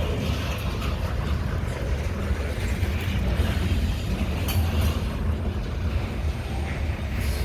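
Wheeling & Lake Erie EMD GP35 diesel locomotives running with a steady low rumble as they come up on the line.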